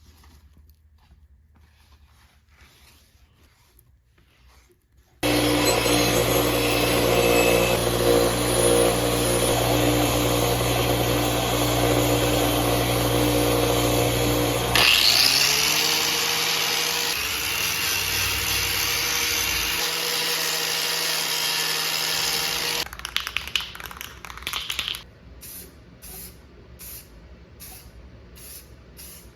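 A power tool switches on suddenly a few seconds in and runs with a steady motor hum for about eighteen seconds. Its pitch drops about halfway through, and it stops near the end, followed by a few scrapes and light clicks.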